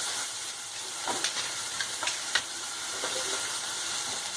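Onions and curry leaves sizzling steadily in hot oil, with a few sharp clicks of stirring against the pan in the middle.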